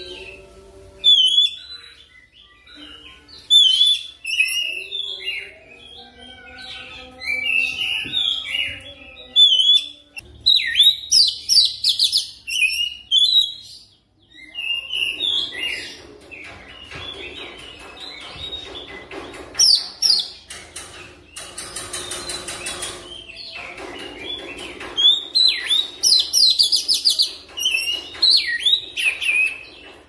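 Oriental magpie-robin (kacer) singing: a string of varied whistled phrases, then, from about halfway, a fast continuous rolling chatter studded with high whistles.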